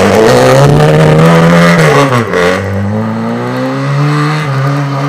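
Car engine revving hard as the car slides in circles on snowy mud. The revs sag about two seconds in, then climb and hold high.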